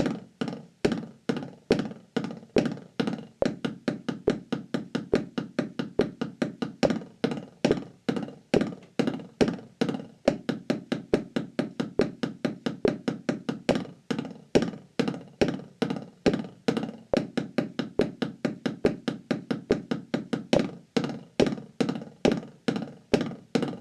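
Drumsticks playing buzz strokes on a rubber practice pad in a steady, even rhythm of short strokes.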